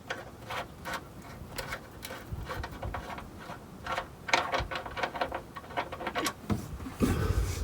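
Hand tools on the oil drain plug of a car's oil pan: irregular metal clicks and clinks as the plug is loosened with a 14 mm wrench, with a louder, deeper noise near the end.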